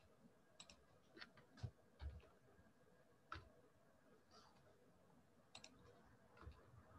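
Faint, irregular clicks of a computer keyboard and mouse, a dozen or so single keystrokes spread unevenly over several seconds, as typed text is edited.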